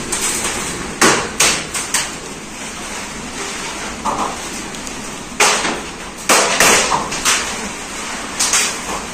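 Irregular knocks and clatter: about ten sharp impacts, a few close together in the first two seconds, then a quieter stretch, then more from about five seconds in.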